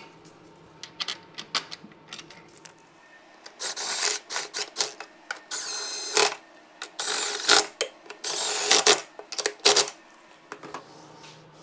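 Cordless drill-driver spinning bolts in, running in short spurts of a second or less, a few times, to fasten an engine-alignment mounting plate to a jet ski's pump mount. Light metal clinks of the bolts and plate come before the drill starts.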